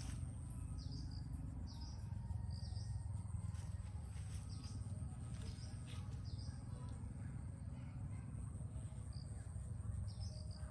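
Birds chirping in short, repeated calls over a steady high insect drone and a steady low rumble.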